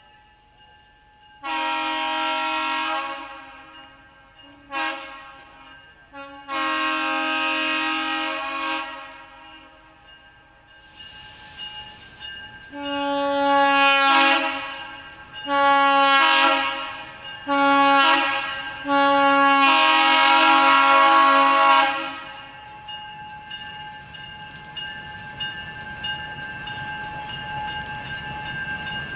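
Diesel locomotive multi-chime air horn on the leading ALCO S1 switcher, sounding a chord in separate blasts: a long, a short and a long, then after a pause the long-long-short-long grade-crossing signal. Near the end the locomotive's diesel engine rumble grows as the train approaches.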